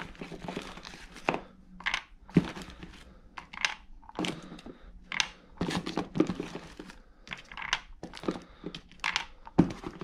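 .68 calibre rounds being dropped by hand into the loading port of an Umarex HDB 68 CO2 pistol, a string of irregular sharp clicks and clacks as the balls land against the plastic and each other, with some handling rustle between them.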